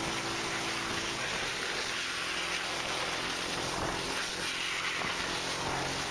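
Steady rushing noise of a fast slide down an icy road: wind buffeting the microphone over the scrape of the slide on ice.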